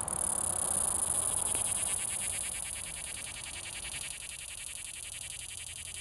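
Annual cicada singing: a loud, steady, high-pitched buzz that takes on a rapid pulsing about a second and a half in and eases slightly in loudness toward the end.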